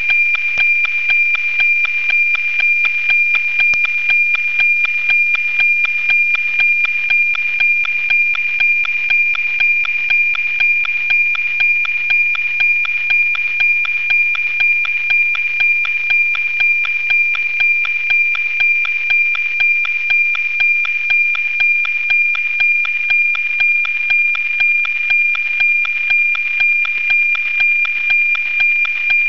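NOAA 19 weather satellite's APT image signal as received by a software-defined radio: a steady 2.4 kHz tone with a rhythmic tick-tock of about two ticks a second, one tick per image line. It holds steady and strong, the sign of a clean downlink while the satellite is overhead.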